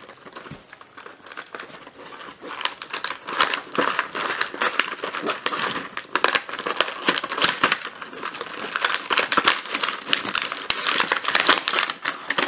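Card-and-plastic blister packaging of a Matchbox five-pack being handled and torn open by hand: crinkling plastic and tearing paper card, faint at first and louder after about two seconds.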